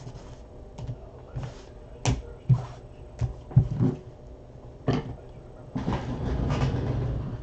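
Hard plastic card cases clacking against each other and the table: several sharp knocks as a stack of them is squared up and set down, then a longer rough rubbing noise near the end.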